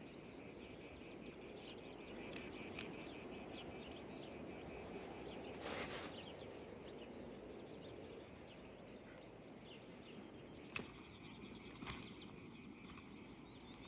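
Quiet open-air ambience: insects chirping in a steady pulsing high note over a low hiss of wind. About six seconds in there is a brief swell of rustling noise, and near the end a couple of faint sharp clicks.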